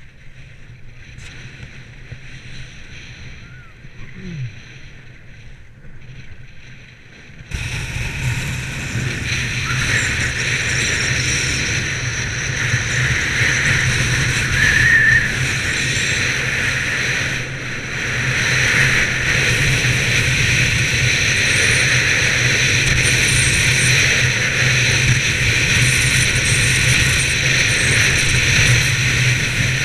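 Skis hissing and scraping over groomed snow, with wind rushing on the camera's microphone as the skier goes downhill. The noise is softer at first, then abruptly louder and steady from about seven seconds in.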